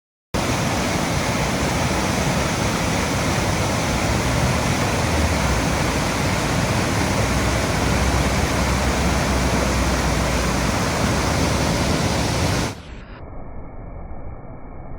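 Waterfall of about 15 m pouring into its pool: a steady, full rush of falling water. Near the end the sound drops suddenly and turns quieter and muffled.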